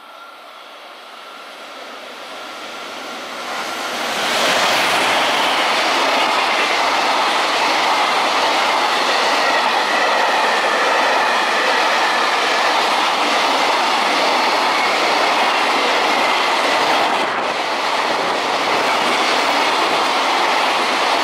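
Electric freight train passing close by at speed: a long run of container flat wagons, mostly empty, with their wheels running over the rails. It grows louder over the first four seconds as the train draws level, then holds loud and steady.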